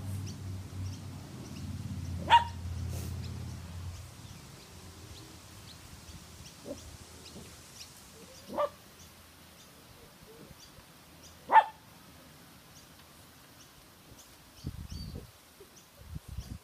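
A dog barking: three short, sharp barks several seconds apart, over a low steady hum during the first few seconds.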